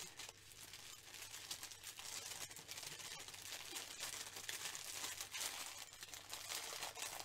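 Small plastic bags of diamond-painting drills crinkling and rustling as they are handled and sorted, a continuous run of light crackles.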